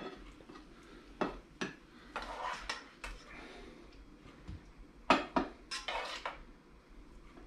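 A spoon knocking and scraping against a saucepan as new potatoes are spooned out onto plates: a few separate sharp clinks, with a cluster of them about five seconds in.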